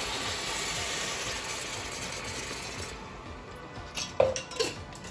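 Liquid poured in a thin stream into a baking dish, a steady hissing splash that fades after about three seconds. About four seconds in come a few sharp clinks and knocks as the container is handled and set down.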